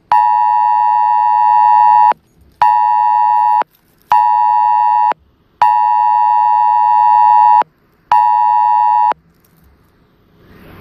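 Wireless Emergency Alert attention tone on a smartphone, sounding for the 2018 national alert test. A loud two-pitch beep plays in the alert's fixed cadence: long, short, short, long, short, with half-second gaps between the tones.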